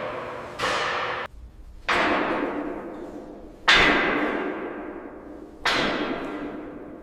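A series of four heavy strikes, about two seconds apart, each sudden and then ringing out slowly.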